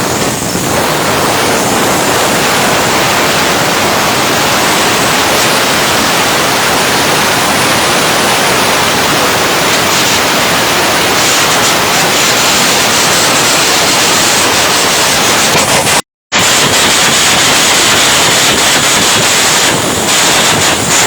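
Stick (arc) welding: the electric arc crackling and sizzling steadily as a bead is run. It cuts out completely for a moment about 16 seconds in, then carries on.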